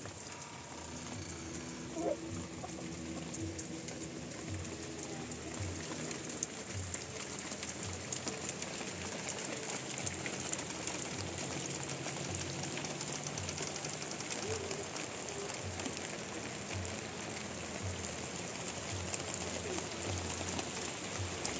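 Steady rain falling on a wet yard, an even hiss, with soft low thuds repeating roughly once or twice a second.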